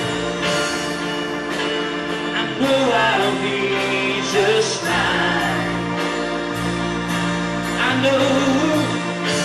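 Church worship team singing a slow praise song over band accompaniment, with sustained chords and a steady beat.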